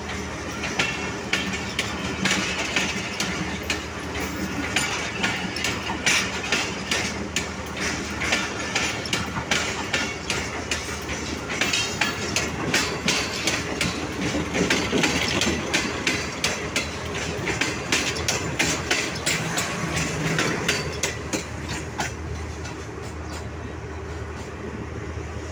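Passenger coaches rolling past at close range as a train pulls out, their wheels clacking again and again over rail joints and points above a steady rumble. The clatter dies away near the end as the last coach draws off.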